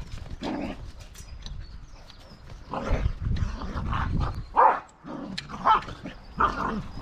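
A dog barking, a run of short separate barks that come more often in the second half.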